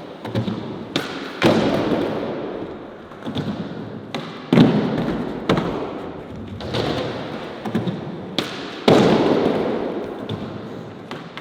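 Skateboard rolling on a wooden surface, with a rushing wheel noise that fades after each of several sharp clacks and thuds as the board hits the wood.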